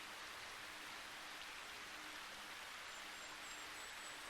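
Faint, steady rushing of a small mountain stream.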